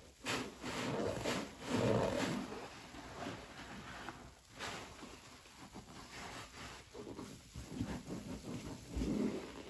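A soaked, foam-covered epoxy sponge squeezed by rubber-gloved hands: wet squelching and crackling of suds in several bursts in the first couple of seconds. Midway, a thin stream of liquid pours onto the sponge. Near the end there is more squeezing down in the foam.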